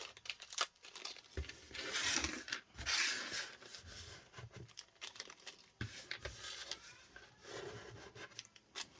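Packaging crinkling and rustling, with scattered light clicks and taps, as small mounting hardware is handled and put back into its packaging.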